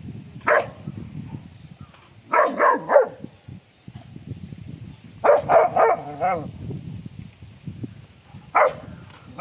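Young Rottweiler barking and yipping in short groups: one bark, then a quick run of three, then a longer run of several that ends in a wavering whine, and one more bark near the end.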